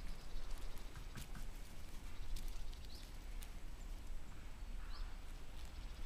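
Outdoor pasture ambience: a steady low rumble of wind on the microphone, with scattered light taps and clicks and a couple of short high chirps.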